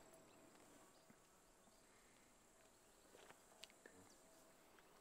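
Near silence: faint background hiss with a thin, steady high tone, and a few faint ticks about three to four seconds in.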